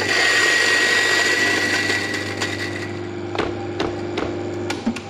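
EK43 burr grinder grinding frozen coffee beans. The grinding starts abruptly with a steady high whine and thins out over about two seconds as the beans pass through the burrs. The motor then runs on with a lower hum and several sharp knocks, and stops near the end.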